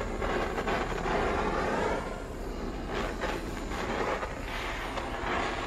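Handheld butane torch burning with a steady hiss, heating a cast-iron cauldron lid while it is seasoned with oil.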